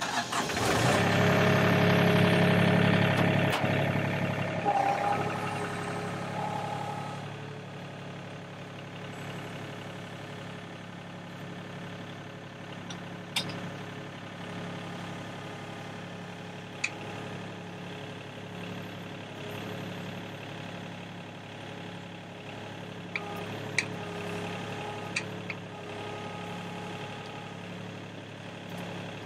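Sany SY35U mini excavator's diesel engine running, louder for about the first four seconds, then settling to a steady, quieter run. A few short, sharp clicks are heard over the engine.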